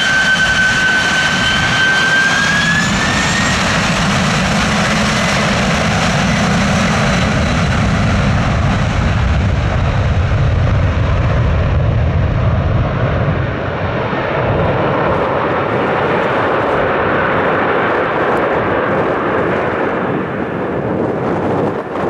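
Twin-engine jet airliner's turbofan engines at takeoff thrust. An engine whine climbs in pitch about three seconds in, then a loud, steady roar that loses its higher tones as the aircraft rolls away down the runway.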